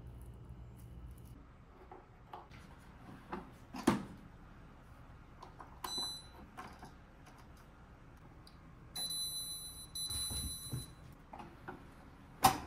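An electronic appliance beeper sounding: one short high beep, then a longer beep of about two seconds with a brief break. There are a few sharp clicks or knocks, the loudest near the end, among soft handling noises.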